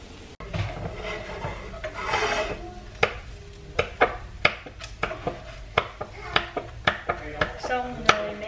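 Wooden spatula scraping and tapping against a nonstick frying pan as a bánh xèo crêpe is loosened and folded: a run of irregular sharp taps, about two a second.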